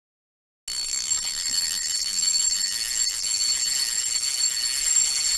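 Channel intro sound: a loud, steady high-pitched sound of two held tones over a hiss. It starts abruptly about a second in.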